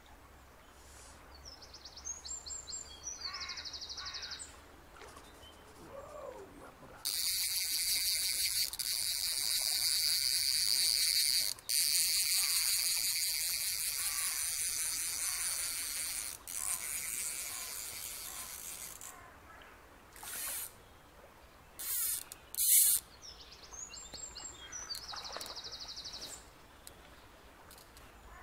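Fly reel's click-and-pawl ratchet working as a hooked trout is played: short spells of rapid clicking, and from about seven seconds in one long, high, continuous buzz of about twelve seconds as the fish takes line off the reel. A couple of sharp knocks follow a few seconds later.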